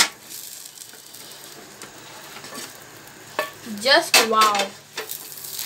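A spatula scraping a cheese-topped pizza out of a hot frying pan onto a tray, with a faint sizzle from the pan. There is a sharp click at the very start, and a short vocal exclamation about three and a half seconds in, which is the loudest sound.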